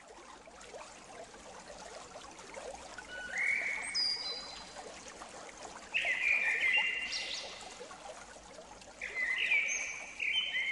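Trickling water with bird calls, the nature-sound opening of a music track: the water fades in, and clear whistled calls that slide in pitch and hold with a ringing tail come in three bursts, about three, six and nine seconds in.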